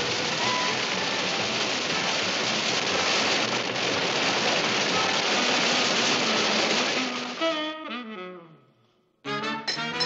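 Cartoon sound effect of a huge wave rushing: a steady hiss of surging water with music faintly beneath. About seven seconds in it gives way to a falling run of notes that fades to a brief silence, then plucked notes strike up near the end.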